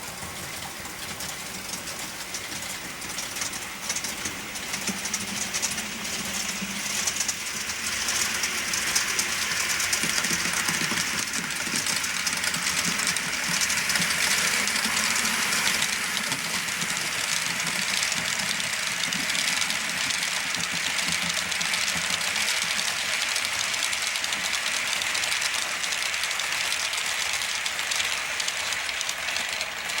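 A model train locomotive with no on-board sound system running along the track, its wheels rolling on the rails and the running gear giving its own mechanical sound. It grows louder over the first several seconds, then holds steady.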